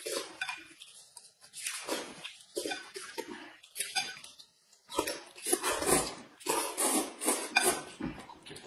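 Mealtime eating noises: wet slurping and sucking of food, with chopsticks clicking against a glass bowl. It comes in a run of irregular noisy bursts that grow denser about halfway through.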